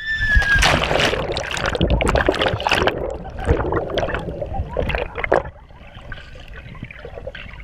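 A rider falls off a jet ski into lake water: loud splashing and churning water with crackling bubbles as the chest-mounted camera goes under. At about five and a half seconds it drops to a quieter, muffled underwater rush.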